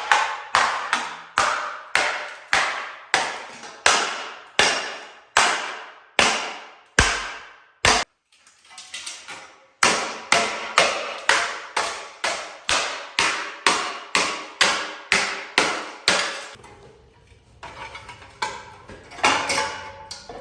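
Hammer striking a motorcycle front fender in steady blows, about two to three a second, each ringing briefly. The blows stop for about two seconds near the middle, and they come softer near the end.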